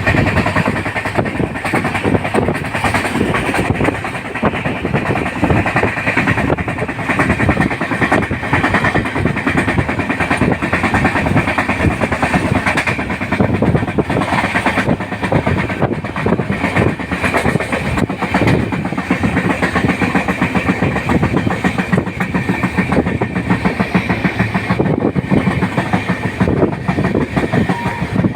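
Moving train running steadily, with a continuous rumble and the rapid clatter of wheels over the rails.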